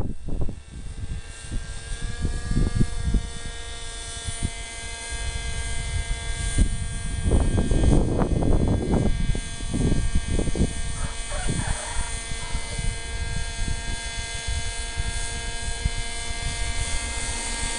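Radio-controlled model helicopter in flight, its motor and rotor giving a steady whine. Wind buffets the microphone in low gusts, heaviest a little before halfway.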